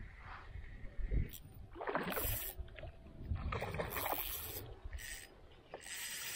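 Water splashing and sloshing in several surges as a hooked trout thrashes at the surface while it is reeled toward a float tube.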